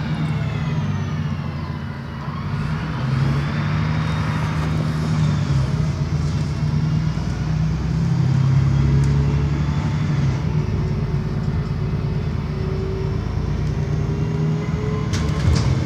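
An Alexander ALX400 double-decker bus's diesel engine running while driving, with a high gear whine that falls and then rises again a few seconds in. A few sharp clicks come near the end.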